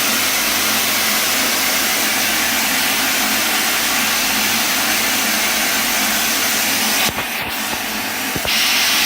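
Machining centre with an ultrasonic spindle thread milling titanium alloy: a loud, steady hiss of machining noise. About seven seconds in it drops briefly with a few sharp clicks, then resumes louder.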